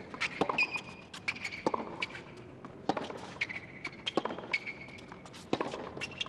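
Tennis rally on a hard court: about five racket strikes on the ball, one every second and a quarter or so, with short high shoe squeaks and quick footfalls between the shots.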